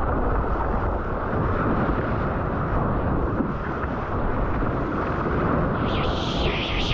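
Ocean surf and water washing against a waterproof action camera at the surface, a heavy steady rumble with no distinct events. About six seconds in, a brighter hiss joins as a wave breaks into whitewater right beside the camera.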